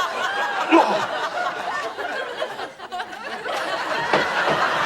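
Studio audience laughing, many voices at once, dipping briefly about three seconds in and swelling again.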